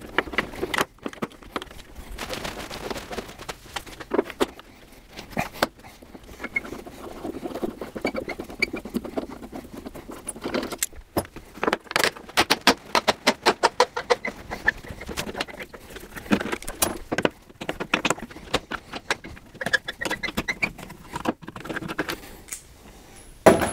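Hand screwdriver backing out the aftermarket Allen screws that hold a 1988 Ford Bronco's hard top, with uneven runs of small metallic clicks and clinks, densest about halfway through.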